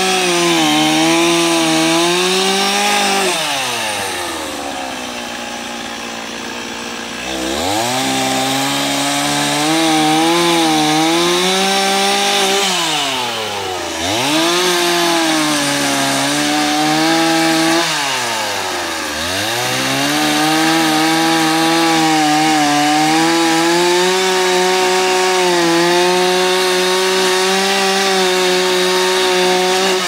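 Chainsaw cutting into a tree trunk at high revs. It drops to idle at about three seconds in, revs back up and bites in again after about seven seconds, dips briefly twice more, then runs steadily under load through the cut.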